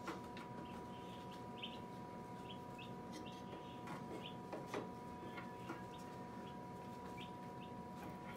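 Birds chirping in short, high peeps at irregular intervals, over a steady faint hum. A few sharp clicks of plastic parts and wiring being handled inside an incubator, the loudest near the start and about halfway through.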